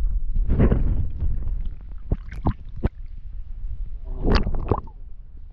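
Sea water splashing and gurgling around an action camera dipped in and out of the surface, with a muffled underwater rumble. There are two louder surges, one about half a second in and one about four seconds in, and a few sharp knocks between them.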